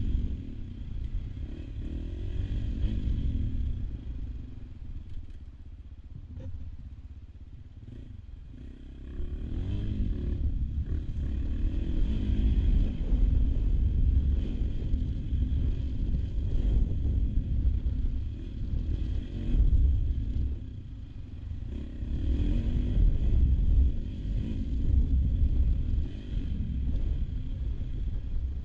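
AJP PR7 adventure motorcycle's single-cylinder engine running while ridden off-road, the revs rising and falling with the throttle. It eases off and goes quieter about four seconds in, then pulls louder again from about ten seconds on.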